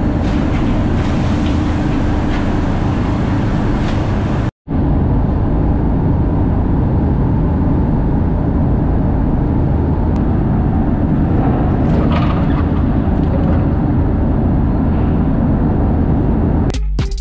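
A car ferry under way: the steady, loud rumble of its engines mixed with the rush of the churning wake. The sound cuts out briefly about four and a half seconds in.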